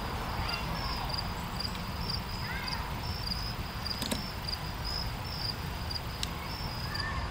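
Crickets chirping steadily in a high, evenly pulsing call, with two short sharp clicks about four and six seconds in.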